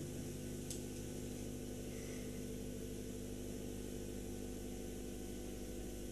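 Faint steady hiss and mains hum from an old 1970s broadcast soundtrack, with one tiny click about 0.7 seconds in.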